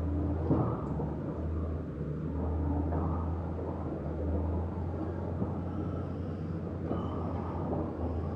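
Diesel engine of heavy construction equipment running: a continuous low drone whose level swells and eases every second or two.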